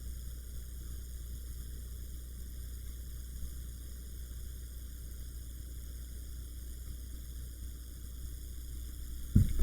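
Steady hiss with a low hum and no distinct events, ending in a brief knock shortly before the end.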